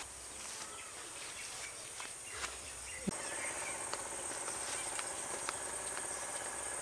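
Steady high-pitched chirring of insects, with a few faint ticks.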